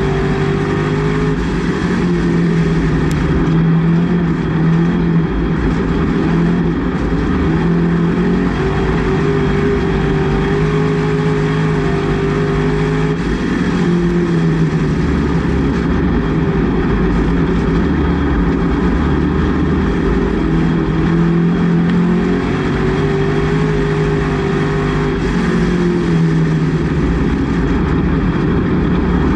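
Race car engine under load, heard from inside the cockpit, its note rising and falling about every ten seconds as the car accelerates and lifts around the laps.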